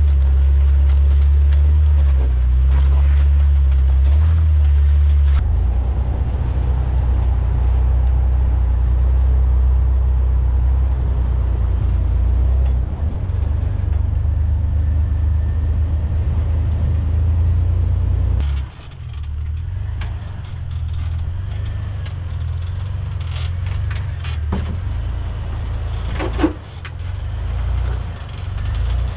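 Off-road Jeep engine and drivetrain running at crawling speed over rocks and logs, with a steady low drone. About two thirds of the way in the sound turns quieter and more uneven, with small knocks and a brief squeak near the end.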